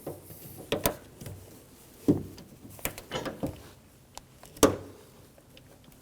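A handful of sharp plastic clicks and knocks, spaced irregularly with the loudest about two seconds in and again near the end, from a door-handle electrical connector and its locking tab being pushed into place inside a car door.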